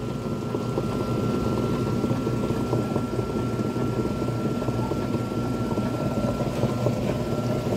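Consul 7.5 kg top-load washing machine running on its side, its motor and belt-driven transmission giving a very loud steady scraping rumble with a thin high whine over it. Only the agitator is turning while the basket stays still, a fault the owner is tracing to the brake actuator not pulling far enough.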